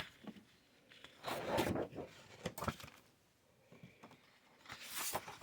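Sheets of scrapbook paper rustling as they are handled and turned over, in three short bursts with quiet between.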